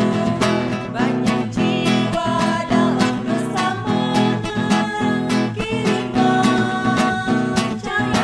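Women's voices singing a hymn in Indonesian in unison, accompanied by a steadily strummed acoustic guitar.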